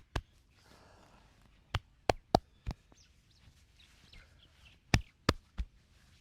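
Sharp slaps and cracks of a head and back massage: about eight short, crisp strikes, in quick groups of three or four with pauses between.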